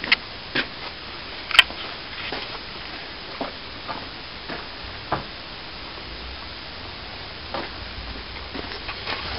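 A hand plastering tool scraping and tapping as excess wet plaster is cut back off a cornice mould: short, irregular scrapes and clicks over a steady hiss.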